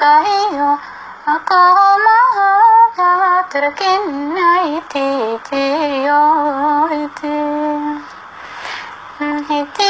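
A single high-pitched voice singing a slow, wavering melody with long held notes, with little or no accompaniment; it breaks off briefly about eight seconds in and starts again just before the end.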